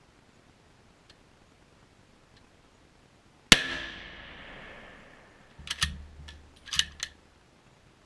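A single rifle shot from an Italian M91 Carcano T.S. carbine in 6.5x52 Carcano, one sharp report with a long echoing decay. About two seconds later come several quick metallic clacks as the bolt-action is worked, ejecting the spent case and chambering the next round.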